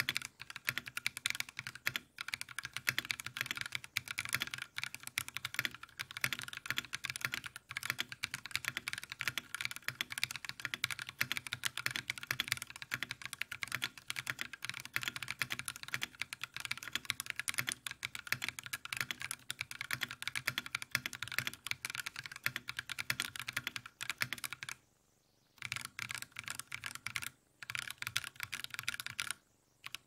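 Fast, continuous typing on a 60% mechanical keyboard with Akko V3 Cream Blue tactile switches in an aluminium case and plate, each keystroke a clack. The typing stops briefly a few times near the end.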